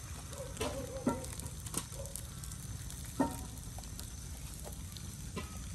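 Striped catfish coated in fermented rice sizzling on aluminium foil over a charcoal grill, with a few sharp pops, the loudest about three seconds in.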